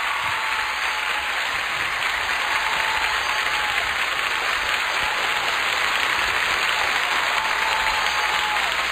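Studio audience applauding steadily, a dense even clapping with no pauses.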